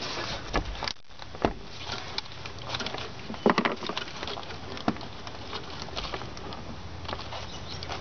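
Irregular clicks, scrapes and rustles of a gloved hand working at a stubborn plastic accelerator-cable grommet with snap-lock tabs, trying to pull it free. There is a louder cluster of clicks about three and a half seconds in.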